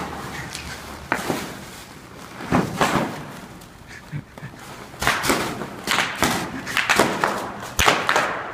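Bubble wrap popping and crinkling under a man crawling over it on hands and knees: a few scattered sharp pops at first, then quick irregular runs of pops from about five seconds in.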